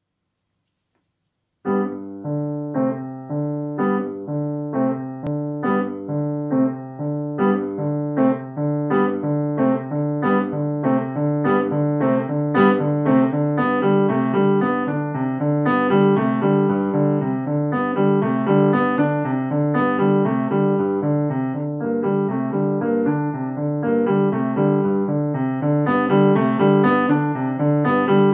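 Grand piano played from about two seconds in: a steady pulse of evenly spaced notes and chords, mostly in the lower-middle register, with a repeated low note.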